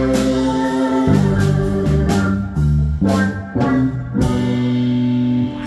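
Live rock band with organ playing the final chords of a song: organ chords held over electric guitar, bass and drum hits, ending on a last held chord that cuts off sharply just before the end.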